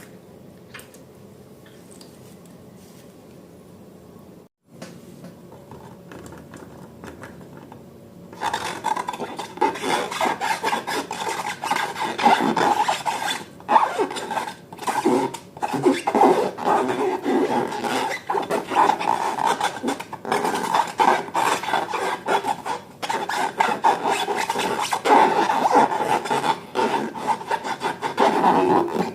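Rubber balloons being rubbed and squeezed by hand, making a rasping, squeaky rubbing that starts about eight seconds in and goes on with many brief breaks.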